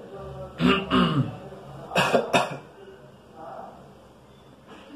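A person clearing their throat about a second in, then coughing twice sharply about two seconds in.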